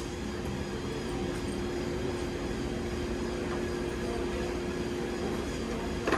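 Steady machine drone with a constant pitched hum, as from a running motor in the workshop; a sharp click sounds near the end.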